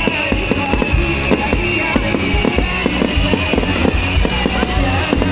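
Fireworks going off overhead in a dense run of crackles and pops, several a second, with music playing loudly underneath.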